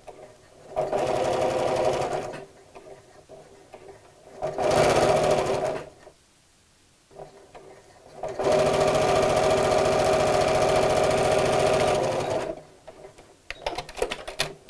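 Janome Memory Craft computerized sewing machine stitching a seam in three runs, the first two about a second and a half each and the last about four seconds, with short stops between. A few light clicks near the end.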